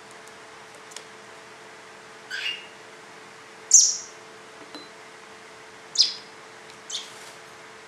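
Baby American robin giving four short, high chirps, the loudest about four seconds in: begging calls as it is fed from a dropper. A faint steady hum runs underneath.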